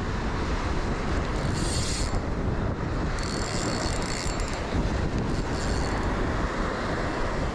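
Wind buffeting the microphone over the wash of surf on the beach, with a few short bursts of higher hiss.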